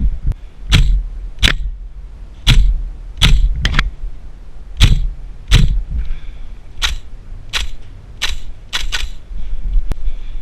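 Airsoft replica fired shot by shot in semi-automatic: about a dozen sharp cracks at uneven spacing, roughly one every half second to a second, with a quick double near the end, over a low rumble.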